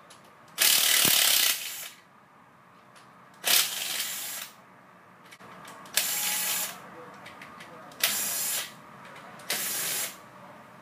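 Cordless power driver running in five short bursts, backing bolts out of an opened scroll compressor's internal housing. The first burst is the longest and loudest.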